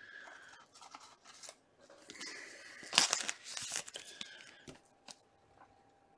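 A trading-card pack wrapper being torn open and the cards inside handled: irregular rustling and tearing, loudest about three seconds in.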